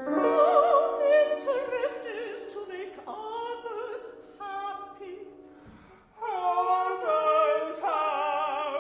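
Opera singers singing with vibrato over accompaniment. The sound breaks off briefly near six seconds, then the voices come back in louder.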